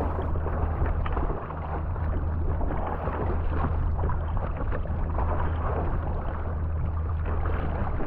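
Sea kayak paddled fast through choppy water: water rushing and splashing along the hull and off the paddle blades with each stroke, over a low steady rumble.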